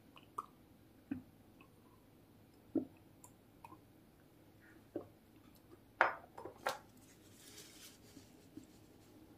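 Faint gulps as someone drinks from a ceramic mug, then a sharp knock or two about six seconds in as the mug is set down on the table, followed by a soft rustle of a paper tissue.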